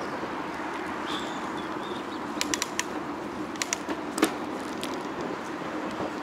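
Steady wind and road noise on a moving bicycle. A short high squeak comes about a second in, and a few clusters of sharp clicks follow in the middle, the loudest a little after four seconds.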